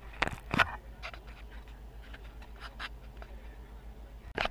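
Handheld camera handling noise: a few sharp knocks and rubs in the first second, then faint room tone with a steady low hum and scattered light ticks, and one more short click near the end.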